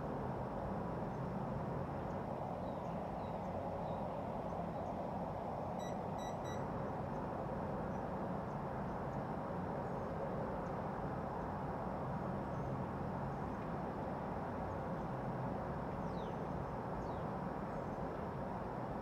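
Steady background noise with a faint constant hum. About six seconds in come three quick, high electronic beeps, and near the end there are a couple of faint short chirps.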